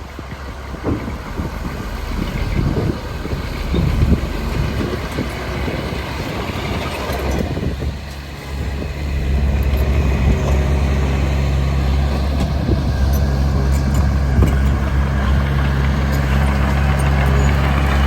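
Heavy diesel engine of earthmoving machinery running, uneven and noisy at first. After a brief dip about eight seconds in, it settles into a louder, steady low drone.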